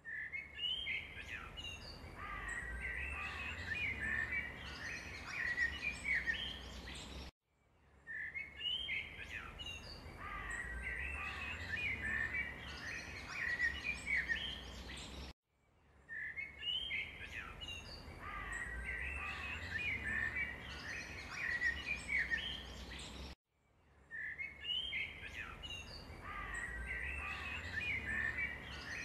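Small birds chirping in quick, high calls. It is one short recording looped about every eight seconds, with a brief silent gap between repeats.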